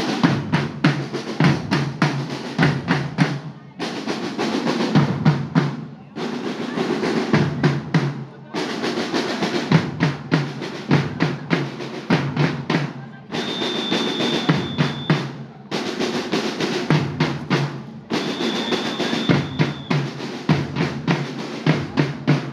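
School marching band (fanfarra) drums playing a march: rapid snare drum beats and rolls over bass drum strokes, with brief dips every few seconds. A high steady tone sounds twice, each for about two seconds, midway through.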